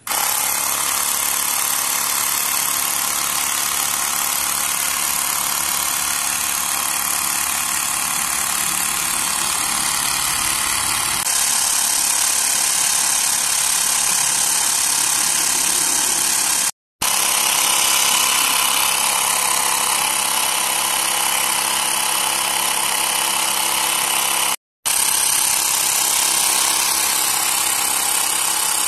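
Xiaomi Mi Portable Electric Air Compressor running, its small motor and pump buzzing steadily as it pumps air into a tyre through its screw-on hose. It starts abruptly, then cuts out to silence twice for a split second.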